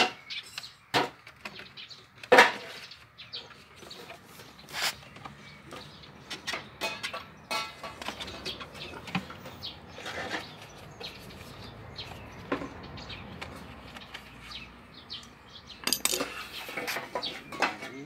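Irregular metallic clicks and knocks of hand tools on the bolts and casings of a scooter engine, the sharpest about two seconds in.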